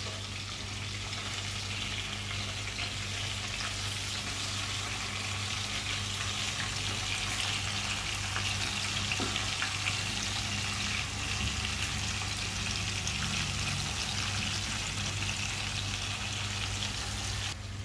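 Chicken leg pieces shallow-frying in hot oil in a kadai, a steady sizzle with scattered light clicks as the pieces are turned over. A steady low hum runs underneath.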